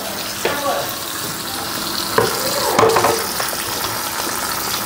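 Kitchen faucet running a steady stream of water into a stainless steel sink as hands are rubbed together under it: an even hiss of running water and splashing.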